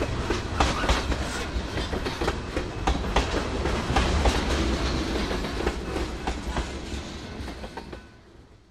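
Freight cars rolling past, their steel wheels clicking over the rail joints in an uneven run of sharp clicks over a steady rumble. The sound fades away near the end as the last car goes by.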